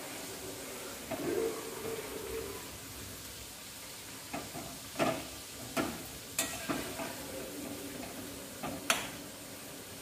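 Alu vadi slices deep-frying in hot oil in a kadhai with a steady sizzle. A metal slotted spoon clicks against the pan several times, mostly in the second half, as the pieces are turned over.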